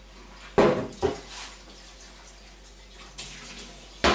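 Kitchenware clattering in a kitchen cupboard as a drinking glass is searched for: two sharp knocks about half a second apart just under a second in, then a faint one and another loud knock near the end.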